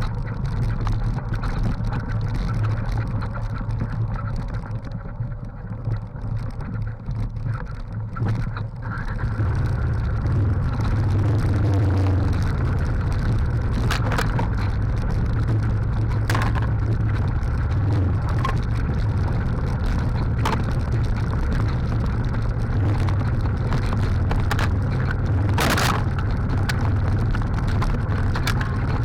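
Trail motorcycle engine running as the bike is ridden, getting louder about nine seconds in and then holding steady, with a few sharp knocks later on.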